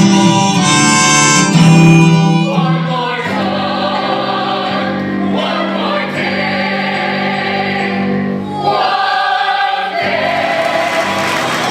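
Music with a group of voices singing together over instrumental accompaniment, held notes that shift from phrase to phrase.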